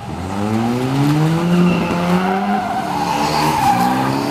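Wankel rotary-engined VW Beetle drift car under power: the engine note climbs steadily for the first couple of seconds, then the tyres squeal as the car slides past close by.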